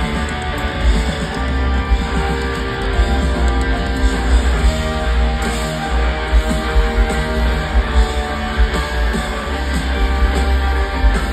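Rock band playing live in a stadium, heard from within the crowd: electric guitar over drums and bass, with steady drum hits.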